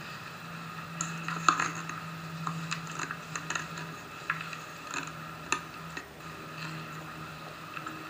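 Scattered small clicks and taps over a steady low hum.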